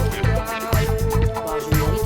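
Music with a steady bass beat and a long held melody note, played through smartphone loudspeakers during a speaker test.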